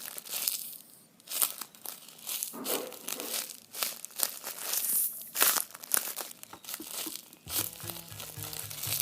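Crinkling and crackling of thin craft material being handled and cut for a homemade squishy, in a quick irregular string of sharp rustles. Background music with a steady low beat comes in about seven and a half seconds in.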